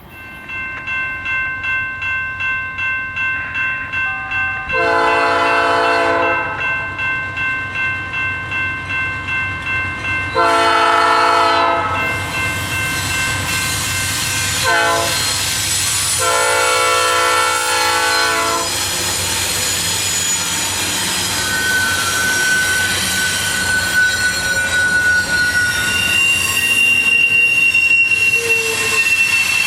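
Diesel freight locomotive's horn sounding the grade-crossing signal, long, long, short, long, over a steadily ringing bell. The train then rolls by with wheels squealing in high tones.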